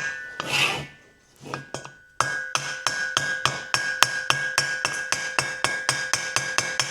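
Fast, even hammer taps on a stuck valve in a 1964 Norton Atlas cylinder head, each strike ringing metallically: the valve is seized open in its guide and is being tapped free while its spring pushes it closed. After a few scattered knocks, the tapping settles into about six strikes a second from about two seconds in.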